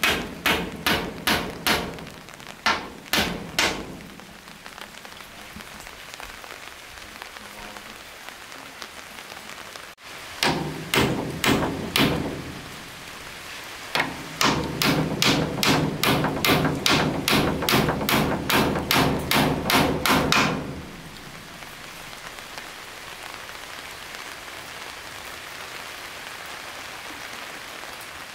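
Rapid, evenly spaced blows on wood, about three a second, in runs of a few seconds with short breaks, each blow ringing briefly; the blows stop about twenty seconds in. A steady hiss lies under them throughout.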